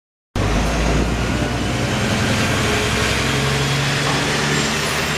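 Wright Gemini 2-bodied VDL DB300 double-decker bus running steadily, a low engine drone with a pitched hum over it. The sound cuts in abruptly from silence a moment in.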